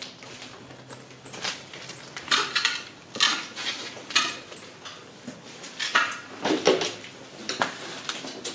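Footsteps crunching and scraping over debris on a rubble-strewn floor, with scattered clinks like broken tile or glass shifting underfoot, at an uneven pace.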